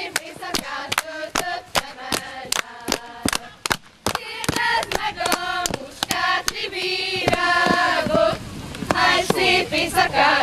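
Hungarian folk men's dance: sharp hand slaps on boots and legs and claps in a quick steady rhythm, about four a second, under a group of women's voices singing a folk song that grows clearer from about halfway.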